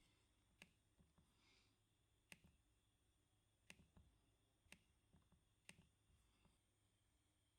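Slow, scattered typing on a computer keyboard: single faint key clicks about once a second at uneven gaps, a few louder than the rest.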